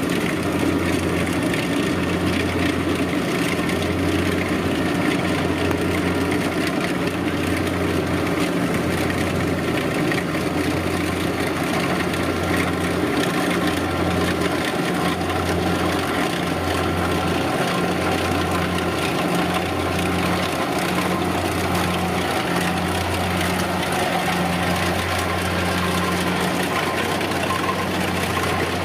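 Kubota DC-70 rice combine harvester running steadily, a low engine hum that pulses about once a second under a dense mechanical rush.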